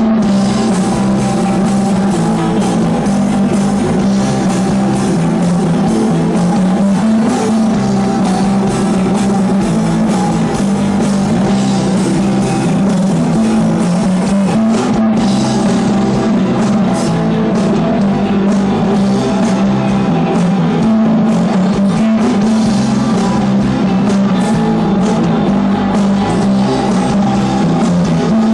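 Rock band playing live: electric guitars, bass and drum kit, loud and steady.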